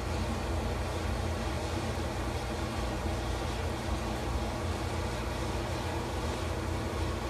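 Farrier's forge running: a steady, even rushing noise over a strong low hum, with no breaks or strikes.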